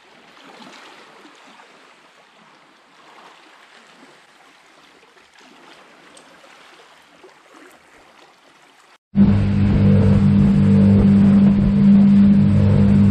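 Faint wash of small waves on a rocky shore. About nine seconds in, a sudden cut brings in a small open boat's motor running loud and steady.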